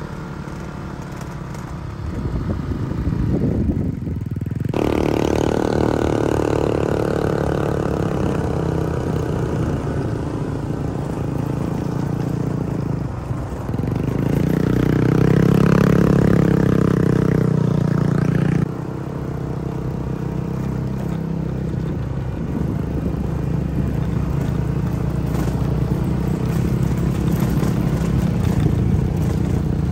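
A motor vehicle engine running steadily. It jumps in level and pitch several times, about 5, 14 and 19 seconds in.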